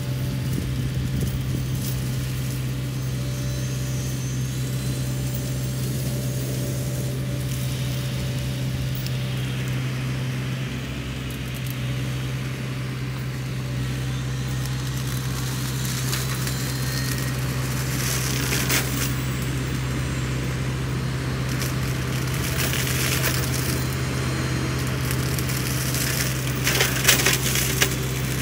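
Sany SY50U mini excavator's diesel engine and Mongo hydraulic flail mulcher running at a steady drone, with crackling and splintering as the flail shreds brush and wood, coming more often in the second half and loudest near the end.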